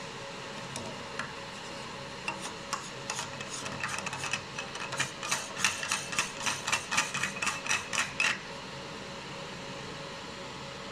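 A run of light clicks as the F-theta lens on a fiber laser marker's scan head is turned by hand: sparse at first, then about three a second, stopping suddenly about eight seconds in. A faint steady hum runs underneath.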